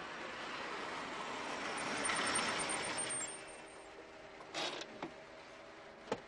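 A car driving past, its engine and tyre noise swelling to a peak about two seconds in and then fading away. Near the end come three short clicks or knocks, the last one the sharpest.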